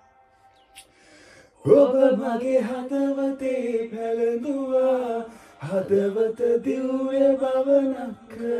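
A man singing unaccompanied, holding long drawn-out notes. The singing starts after nearly two seconds of quiet and breaks off briefly once before carrying on.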